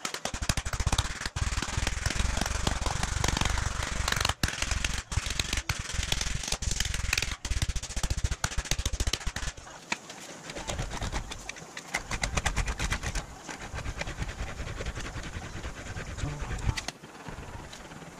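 Rapid mallet blows on a sheet of aluminium held over a hollowed tree stump, as the panel is hammered into a curve. About ten seconds in this gives way to a rolling noise that swells and fades in passes as the sheet is run back and forth through an English wheel.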